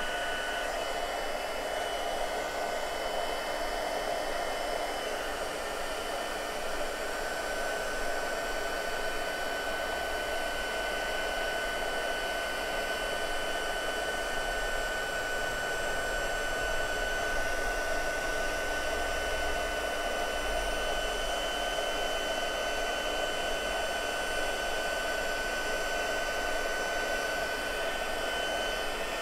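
Handheld craft embossing heat gun running steadily, its fan blowing hot air with a constant high whine on top, held over a card to melt embossing powder.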